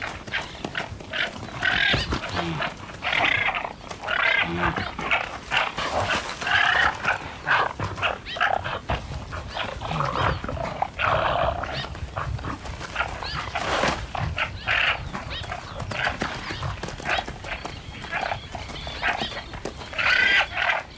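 Male guanacos fighting: a run of repeated calls, about one every second or two, with short knocks and scuffles between them.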